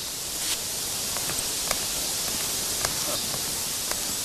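Steady hiss of background ambience with a few faint, short clicks.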